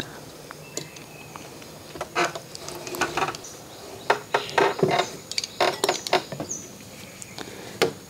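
Irregular clicks and light clinks of cutting and handling: a metal pizza cutter run along a wooden strip through a slab of set ash gourd halwa, and cut pieces set down on a steel tray.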